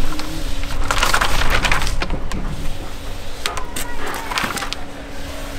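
A crayon scraping in short strokes across building paper stretched over OSB sheathing, marking where the studs are. The strokes come thickest about a second in and again near the middle.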